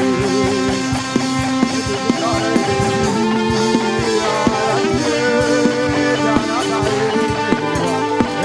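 Worship band music with a drum beat under held instrument notes, no singing.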